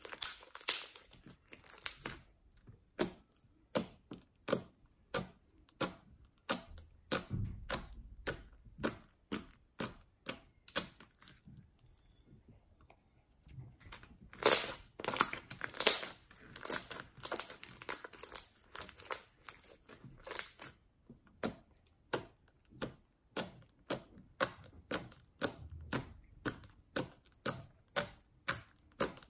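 Fluffy slime being squeezed and poked by hand, making a string of sharp crackling pops and clicks, roughly two a second, with a short pause near the middle.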